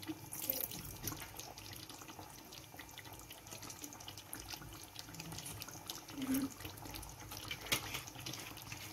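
Chicken korma gravy simmering in a pot on a gas flame: a faint bubbling hiss with many small pops.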